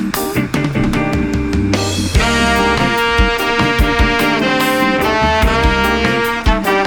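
Background music: an upbeat song with drums and bass, where a brass section comes in about two seconds in, playing held notes.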